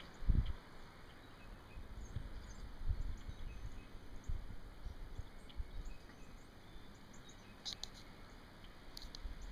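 Winter outdoor ambience: uneven low rumbles of wind buffeting the microphone, with faint scattered bird chirps and a couple of sharp ticks near the end.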